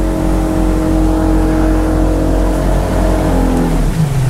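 Boat engine running at speed with the hull underway; its pitch drops near the end as the engine slows.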